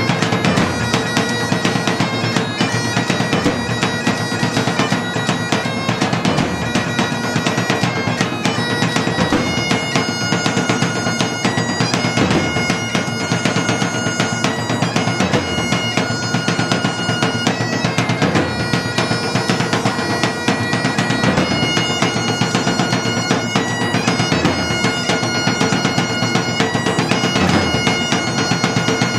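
Bagpipe music: a melody played over the pipes' steady drone, with a drum beat beneath.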